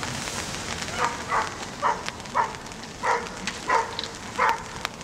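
Steady rain with scattered drop ticks, and an animal giving a run of seven short calls about half a second apart, starting about a second in.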